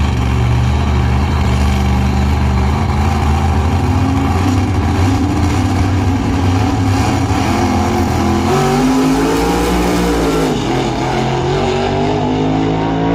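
Drag race car engine idling loudly and steadily, then revved, its pitch rising and falling several times in the last few seconds.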